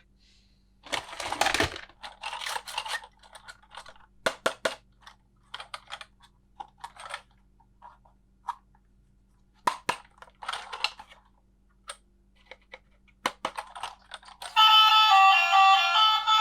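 Plastic toy pieces and packaging being handled: a rustle about a second in, then scattered clicks and taps at irregular intervals. Background music comes back in near the end.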